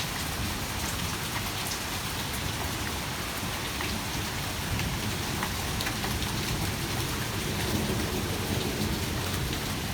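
Heavy, torrential rain pouring down in a steady hiss, with scattered individual drops ticking on nearby surfaces.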